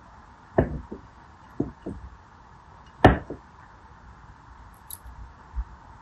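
Snap-off utility knife blade cutting into water beads held in the fingers: a few sharp taps and knocks in small pairs, the loudest about three seconds in, then fainter ticks near the end.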